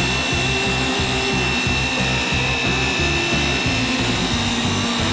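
Background music with a steady beat over a dual-action orbital polisher running on a car's paint, giving a steady high whine.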